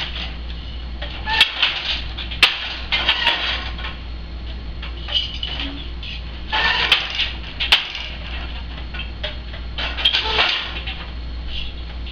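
Wooden countermarch loom being woven on: rustling swishes of the shuttle passing through the warp and the beater moving against the cloth, with a few sharp wooden clicks and knocks.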